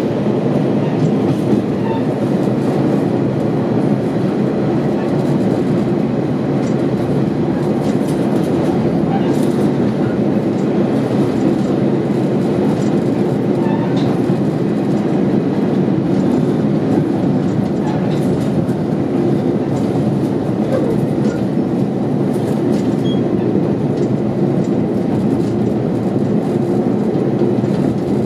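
KiHa 40 diesel railcar running along the line, a steady engine and running drone from inside the car, with occasional faint clicks of the wheels over the track.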